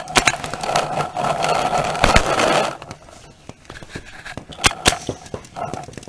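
A last couple of paintball marker shots, then a rough scraping and rustling as the gun and its barrel-mounted camera rub against the inflatable bunker and grass while the player ducks down. Two more sharp cracks come just before five seconds in.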